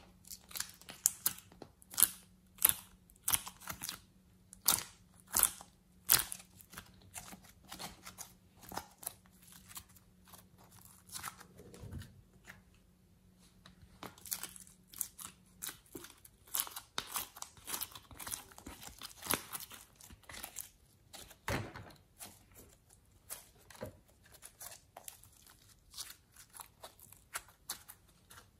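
A plastic ice-cube tray crackling and clicking irregularly as fingers push molded clay out of its cells, with soft tearing and squishing of the clay.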